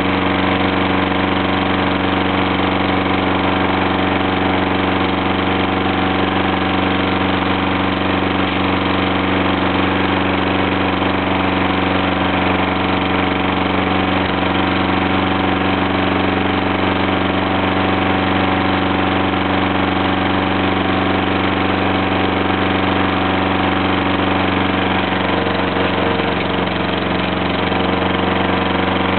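Remote-controlled lawn mower's gas engine running steadily at an even speed, heard very close from a microphone mounted on the mower itself.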